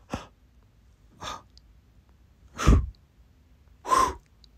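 A person's voice making four short, breathy gasps about a second apart, the loudest about two and a half seconds in.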